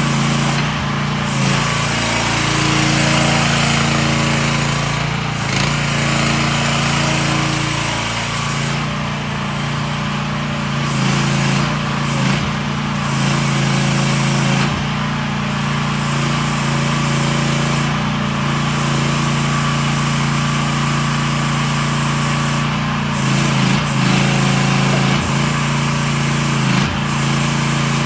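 Gasoline engine of a VICSEC VC13 mini excavator running steadily while the boom, arm and bucket are worked hydraulically. Its note shifts briefly now and then.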